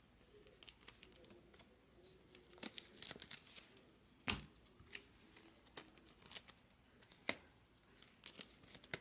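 Soft crinkling and rustling of baseball trading cards in clear plastic sleeves being handled, with scattered small taps, the sharpest about four seconds in.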